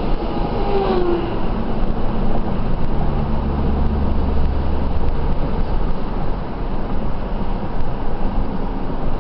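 Road noise inside a moving car's cabin: a steady rush of engine and tyre noise, with a deeper low rumble swelling for a couple of seconds in the middle.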